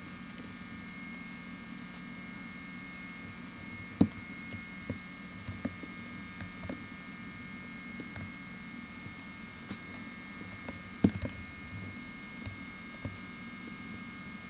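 Steady electrical hum with a faint high-pitched whine, broken by a few sharp knocks and clicks; the loudest come about four seconds in and again about eleven seconds in.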